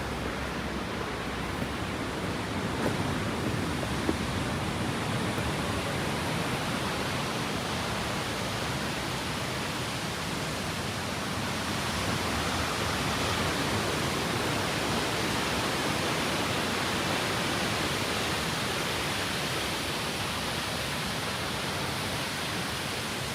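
Steady rushing of the Água d'Alto waterfall's falling water, growing a little louder and brighter about halfway through.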